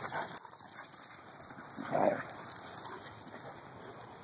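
Dogs at play, one giving a single short vocal sound about two seconds in, over faint scuffling and small clicks.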